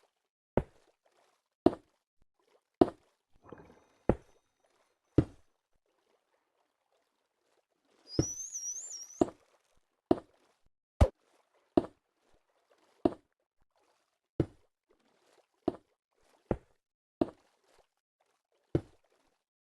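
A series of sharp knocks, about one a second at uneven spacing, with a short high warbling squeak about eight seconds in.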